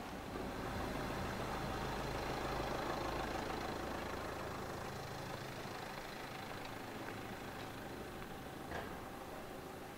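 A motor vehicle's engine running nearby, a steady low hum that is strongest in the first few seconds and fades away after about five seconds.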